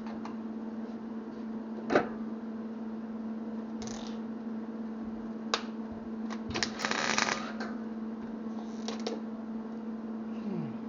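Steel parts being handled and fitted by hand: a sharp knock about two seconds in, a few light clicks and a short scraping rustle in the middle, over a steady electrical hum.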